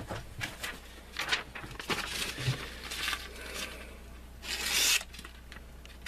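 Paper rustling as a phone book is handled, then, about four and a half seconds in, a half-second rasp of a D2 steel folding-knife blade slicing through phone-book pages in a sharpness test.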